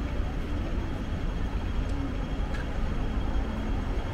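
Steady city street traffic noise: vehicles running on the road alongside, with a low rumble.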